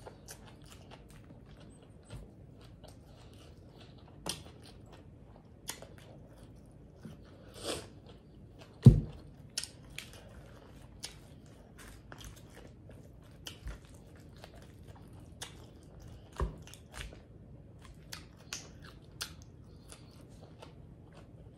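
Close-miked chewing and biting of a mouthful of Caesar salad, with scattered small clicks from a fork in the plastic salad container and one louder thump near the middle.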